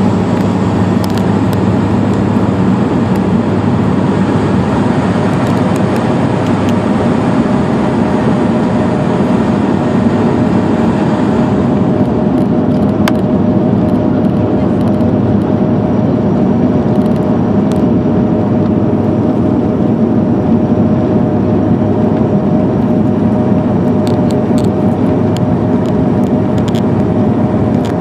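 Steady cabin noise inside an airliner descending on approach to land: engines and rushing air, with a steady low hum. About halfway through, the upper hiss drops back a little.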